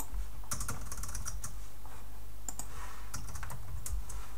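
Typing on a computer keyboard: two quick flurries of key clicks over a steady low hum.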